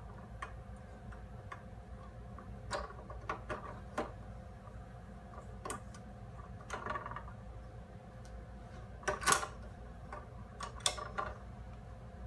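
Irregular clicks, clacks and knocks as the control module and metal support poles of an animatronic prop frame are handled and fitted together. The loudest clack comes about nine seconds in.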